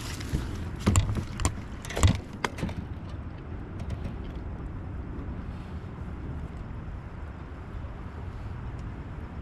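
Several sharp knocks and rattles during the first three seconds, the loudest about two seconds in, as a small fish hooked on a crankbait is swung into a kayak and taken in hand. After that comes a steady rush of wind and water.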